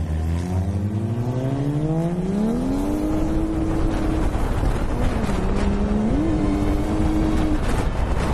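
Car engine pulling hard, its note climbing smoothly over the first three seconds and then held high. About five seconds in it drops, then climbs back up a second later, over a steady road and tyre noise.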